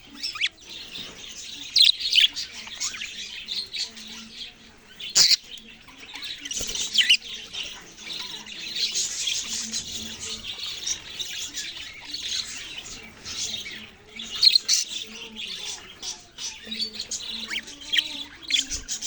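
Budgerigars chirping and chattering without pause: many short, high calls overlapping. A single sharp click comes about five seconds in.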